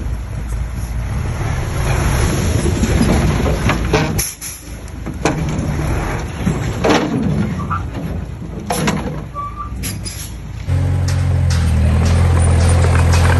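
Earthmoving machinery at work: an engine running with several sharp clanks and knocks, then about eleven seconds in a sudden change to a louder, steady low engine drone.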